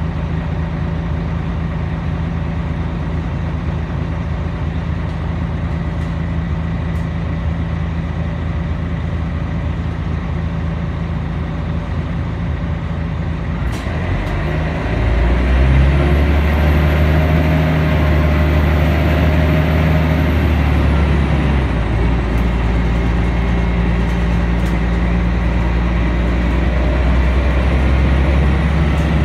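Scania L113CRL bus's 11-litre six-cylinder diesel heard from inside the cabin, idling steadily at first. About halfway through a short click comes, then the engine note rises and gets louder as the bus pulls away and accelerates, dropping once as the gearbox changes up.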